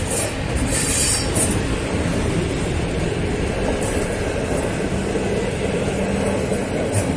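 Passenger train hauled by a PKP class EP07 electric locomotive passing close by. The passenger coaches' wheels rumble steadily on the rails, with sharp clicks from the wheels about a second in and again near the end.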